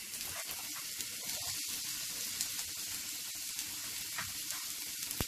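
Onion sizzling in hot oil in a pan: a steady hiss with small crackles.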